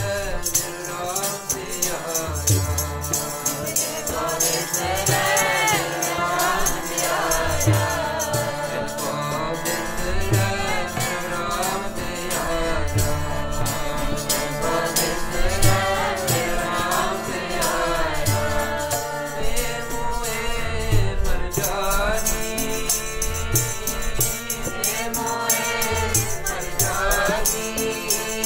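Sikh keertan: a devotional hymn sung by several voices over a harmonium's held chords. Low hand-drum strokes keep the beat, and a jingling percussion instrument rattles steadily throughout.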